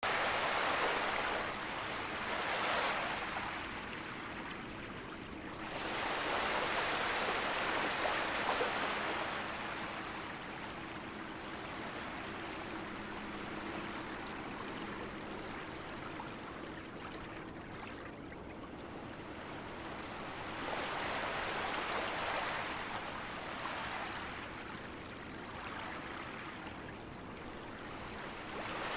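Gentle sea waves lapping on a beach, the wash swelling and fading in slow surges every several seconds.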